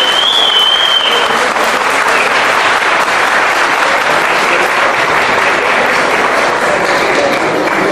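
An audience applauding, a dense, steady clapping. A brief high tone sounds over it in the first second or so.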